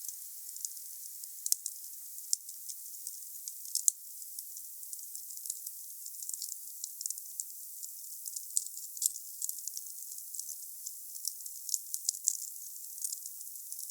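Wood fire crackling: a steady hiss dotted with frequent small, sharp, irregular pops.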